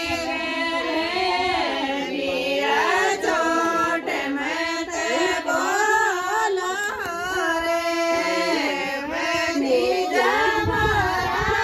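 A high voice singing a Rajasthani folk song in long, bending phrases.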